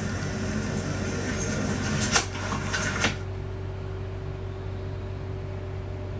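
Television sound from a live tennis stream: a noisy hiss with sharp knocks about two and three seconds in, then the stream's sound cuts out and a steady electrical hum remains while the next channel loads.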